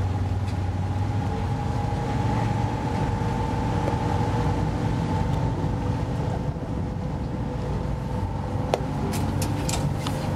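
Boat engine running steadily: a low, even hum with a thin steady whine above it.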